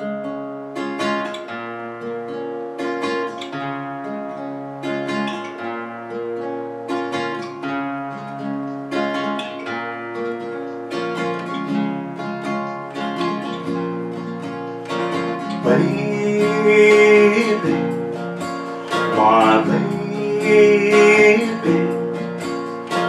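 Background music: a song opening on plucked guitar notes, with a singing voice coming in about two-thirds of the way through.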